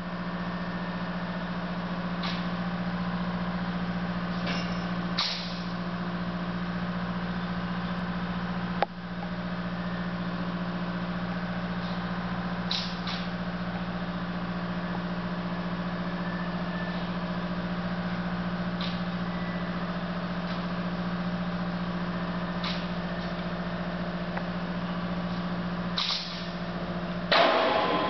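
Heavy machinery engine running steadily at an even pitch, with a sharp knock about nine seconds in and a few faint short clicks. A louder, noisy burst lasting under a second comes near the end.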